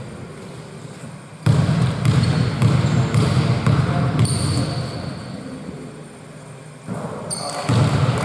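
Basketball game play on an indoor court: the ball bouncing, with several short sneaker squeaks on the floor.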